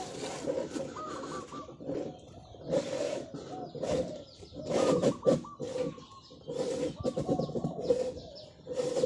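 Zebra dove cooing again and again in long rolling, trilled phrases, the drawn-out 'ord' call prized in Thai dove-keeping.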